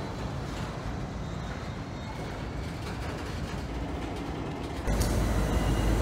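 Freight cars of a slowly moving train rolling past, a steady low rumble. About five seconds in it jumps to a louder, deeper rumble with faint, thin, high wheel-squeal tones.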